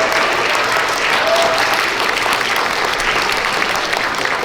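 An audience of schoolchildren applauding: many hands clapping at once, loud and steady throughout.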